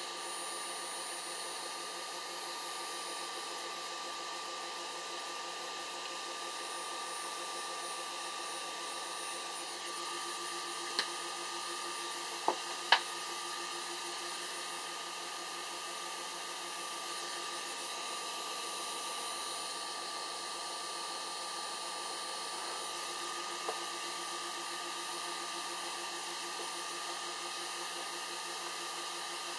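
Steady whir of a small cooling fan with a constant high electrical whine from an idle mini CNC laser cutter, broken by a few faint clicks about halfway through.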